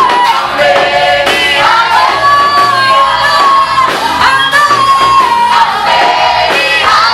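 Choir singing a gospel song with instrumental accompaniment, long held notes sliding between pitches.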